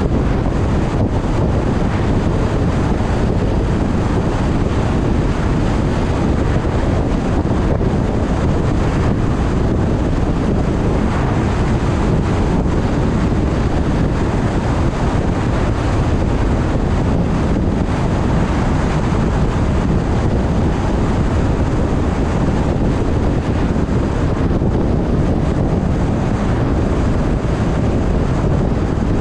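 Car driving at a steady speed: constant wind and road rumble, heaviest in the low end, with no changes.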